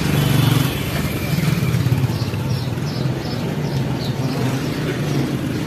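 Street traffic, with a motor vehicle engine, likely a motorcycle, running close by with a steady, wavering low drone.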